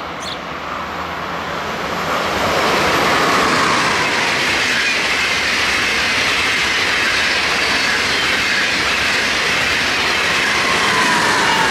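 ICE high-speed train passing on the adjacent track: a loud, steady rush of wheel-on-rail noise that builds over the first three seconds and then holds, with a faint high whine over it.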